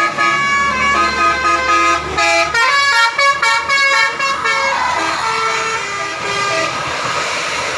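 Bus telolet horn playing a tune: several horn notes sounding together and changing in steps, with a run of short, quick notes in the middle.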